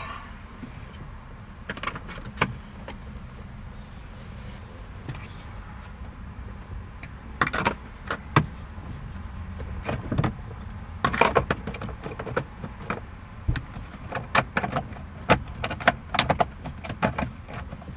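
Clicks and knocks of plastic trim pieces and wiring harness connectors being handled and fitted back into a car's steering column. They are sparse at first and come thick and fast in the second half, over a steady low hum, with a faint high pip about once a second.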